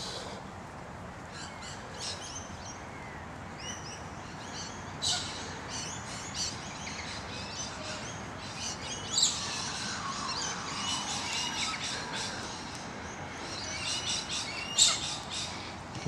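Several wild birds chirping and calling, many short high notes overlapping, with a few louder calls about five, nine and fifteen seconds in.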